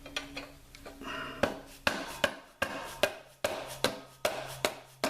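Hammer tapping on metal, about two strikes a second, starting about a second and a half in; likely the motorcycle's front axle being driven out. A faint steady hum runs underneath.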